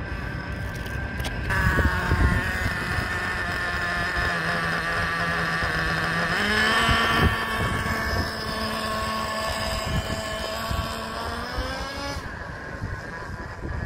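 Small nitro glow engine of a Traxxas Revo 3.3 RC truck running as the truck drives past: a steady buzzing note that steps up sharply in pitch about halfway through, is loudest as the truck passes close, then rises once more and fades as it drives away. The engine is running with its low-speed needle set too lean, the setting that the owner blames for permanently damaging it.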